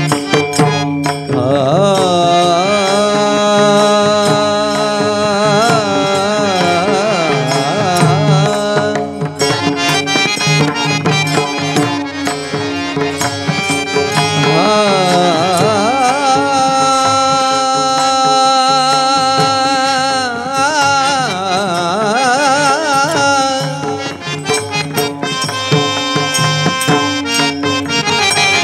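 Marathi kirtan music: a male voice sings a slow, heavily ornamented devotional melody in two long phrases, the second starting about halfway in, over a steady drone. A hand drum and small brass hand cymbals (tal) keep the rhythm throughout.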